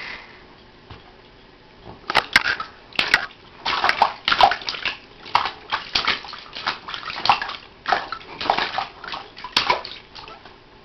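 A baby's hands slapping and splashing water in a small inflatable tub: a run of irregular splashes starting about two seconds in and dying away near the end.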